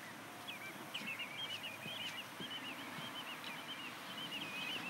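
Small birds chirping and twittering in quick runs of short, high calls, over quiet outdoor background noise.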